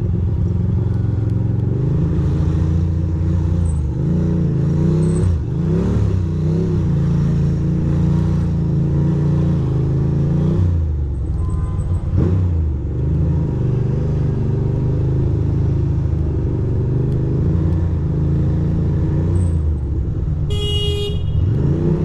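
2006 Ducati Monster 620's air-cooled L-twin engine running at low speed in traffic, its revs rising and falling repeatedly as the throttle is opened and closed. A vehicle horn honks once, for about a second, near the end.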